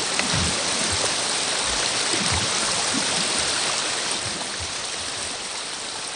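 Rushing water: a steady, even hiss that slowly fades.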